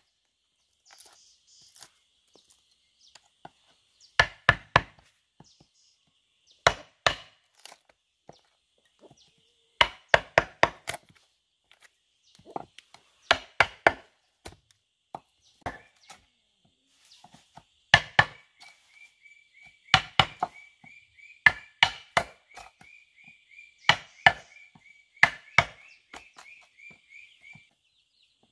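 Wooden mallet striking a steel chisel into a wooden block, in quick bursts of three or four sharp knocks every two or three seconds. A faint high trilling tone runs through the second half.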